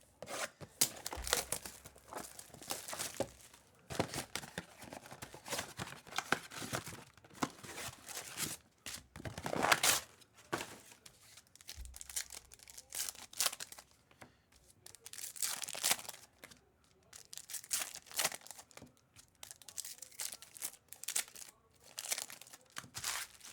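Trading card pack wrappers being torn open and crinkled, in repeated bursts of tearing and rustling, the loudest about ten seconds in.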